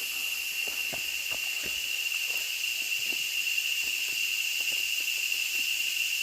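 Steady high-pitched drone of jungle insects, with the scattered soft steps and scuffs of hiking shoes on a dirt and root trail.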